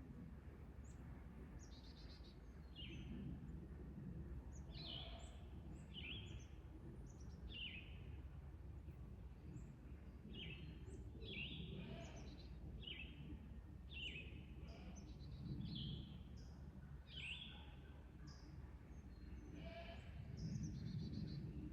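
Birds calling outdoors: many short, downward-sliding chirps repeating every second or so, over a steady low rumble.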